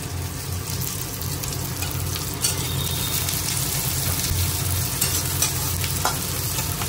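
Onions sizzling as they fry in oil in a pan, stirred with a spatula that scrapes the pan a couple of times, over a low steady hum.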